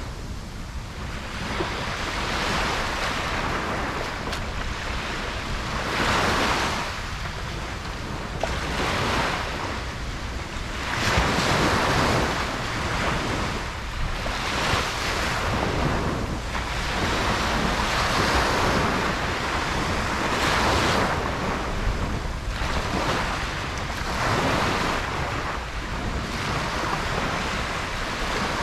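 Ocean surf breaking on a beach, the waves washing in and out in swells every few seconds.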